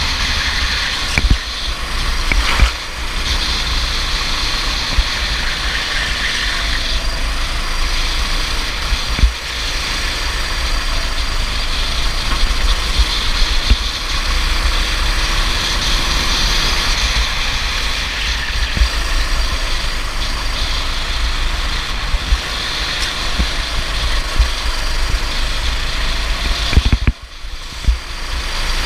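Go-kart engine running steadily, with a short drop in level near the end.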